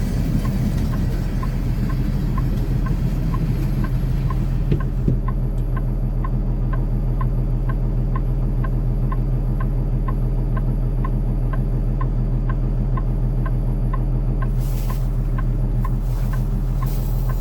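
Semi truck's diesel engine idling steadily, heard from inside the cab, with a short tick repeating about twice a second. A brief hiss comes about fifteen seconds in.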